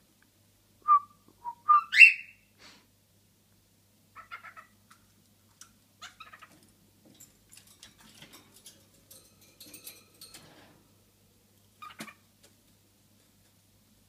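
Cockatiel calling: a few short whistles about a second in, the loudest a steeply rising whistle at about two seconds, then soft scattered chirps and ticks. A sharp click comes near the end.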